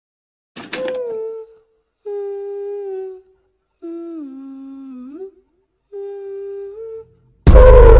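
A person humming four slow, drawn-out notes with short gaps between them, the third note sliding down and then back up. Loud music cuts in abruptly near the end.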